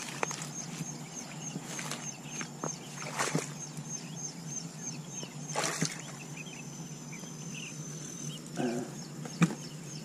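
Footsteps and stems brushing as someone pushes through tall grass and reeds, with a few louder swishes. Behind it a high chirp repeats about three times a second, giving way to a steady high whine past the middle.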